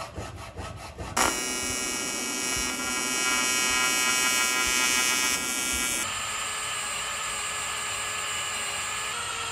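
A hand file rasping in even strokes on metal in a vise for about the first second, then an arc welder's steady buzz with a hiss as brackets are welded on. About six seconds in it cuts to a cordless drill running steadily as it bores through the fuel rail.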